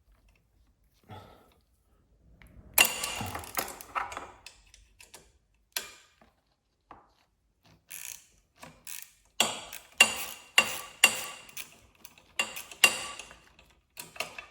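Socket ratchet clicking as a 10 mm nut on a light-bracket bolt is worked loose, with a scuffle of handling about three seconds in and a run of sharp clicks about two to three a second in the second half.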